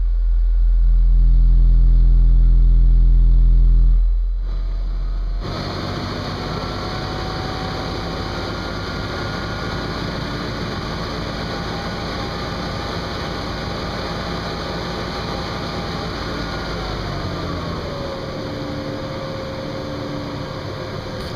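Car-audio SPL burp: a Digital Designs 9510 subwoofer, driven by two Sundown SAZ-2500 amplifiers, plays a very loud 42 Hz bass tone at full power for about four seconds, then cuts off. Afterwards there is a steady mechanical hum, with a faint whine that drops in pitch near the end.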